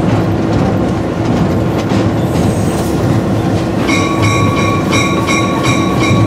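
Steady rumble of an EMD GP38 diesel locomotive and its wheels on the rails, heard from inside the cab. About four seconds in, a bell starts ringing rapidly, about three strikes a second.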